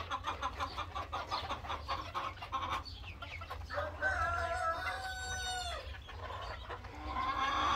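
A flock of young Modern Game Bantam hens (pullets) clucking, many short quick clucks overlapping. About four seconds in, one bird gives a single long drawn-out call lasting about two seconds that drops in pitch at its end, and the clucking picks up again near the end.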